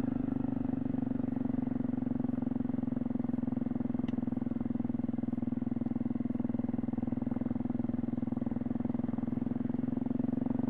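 Honda CRF250L's single-cylinder four-stroke engine running steadily at low speed, an even drone with no revving.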